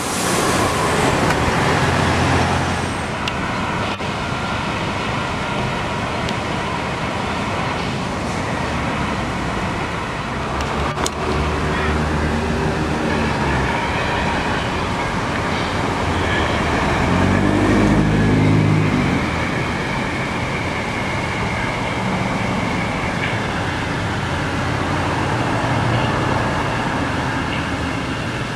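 Street traffic: cars and other motor vehicles driving past, their engines swelling and fading as each goes by, loudest about eighteen seconds in. A single sharp click sounds about eleven seconds in.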